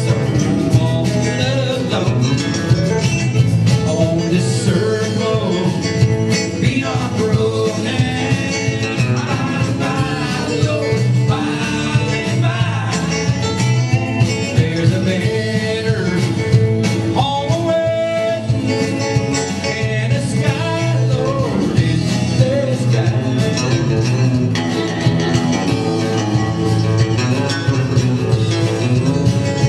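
Live band playing a song: a man singing lead over acoustic guitar and electric bass.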